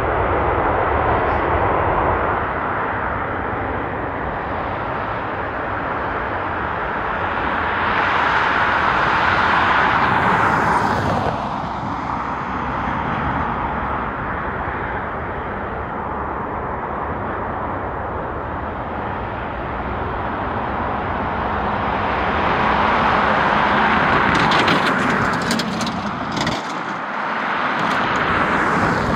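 Jet airliner engine noise, swelling twice as the aircraft passes, with sharp crackling near the end.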